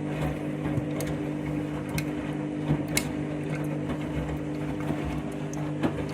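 Washing machine drum spinning on its final spin, the motor running with a steady hum, with several sharp knocks or rattles at uneven moments.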